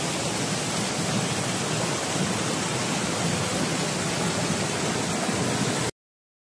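Mountain stream rushing over rocks and small cascades: a steady rush of water that cuts off suddenly near the end.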